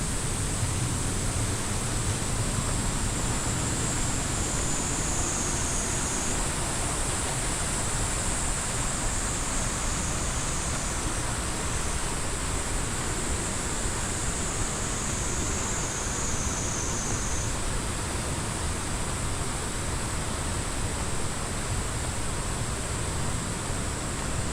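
Waterfall: falling water rushing steadily and evenly, with no breaks.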